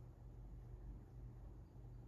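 Tatung 42-inch ceiling fan running on low: a faint, steady motor hum.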